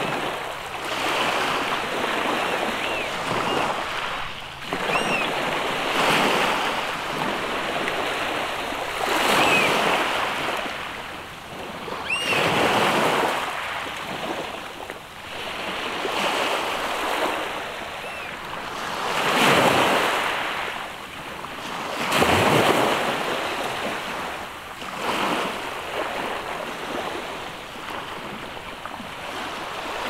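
Sea surf washing against a rocky shore, surging and ebbing every few seconds, with the biggest surges past the middle. Short, high bird calls sound now and then over it, mostly in the first half.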